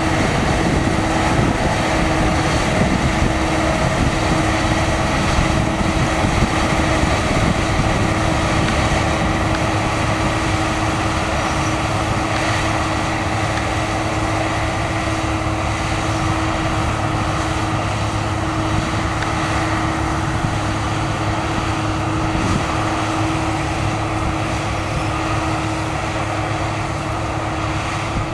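Claas Lexion 450 combine harvester running steadily under load while cutting and threshing wheat: a dense mechanical drone with a steady hum.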